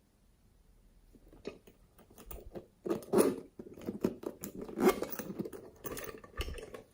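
Slime being squeezed and kneaded by hand, making irregular wet crackling and popping clicks that start about a second and a half in and grow louder.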